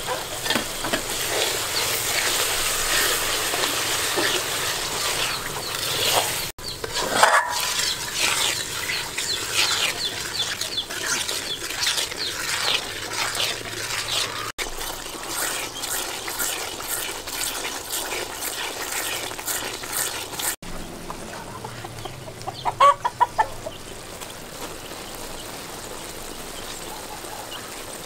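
Milky palm-fruit dessert mixture crackling and bubbling in a metal wok as a ladle stirs it, with a chicken clucking in a few short bursts, loudest near the end.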